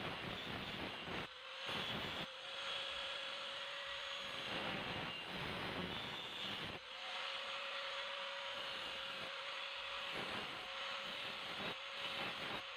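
Electric grinder working the steel of an old saw blade: a steady motor whine over a rough grinding hiss, dropping out briefly every few seconds.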